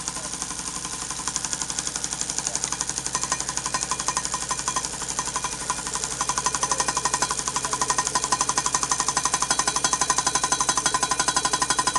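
Homemade thermoacoustic hot-air (Stirling-type) engine running, its moving parts making a fast, even mechanical ticking like a metronome, which gets louder about six seconds in.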